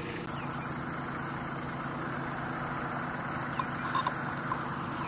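Kubota B2601 compact tractor's three-cylinder diesel engine running steadily, with a few faint clicks about four seconds in.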